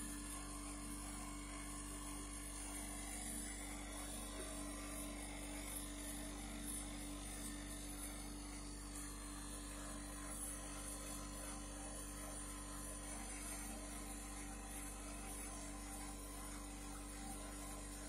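A steady electrical hum with a light hiss and no other distinct sounds.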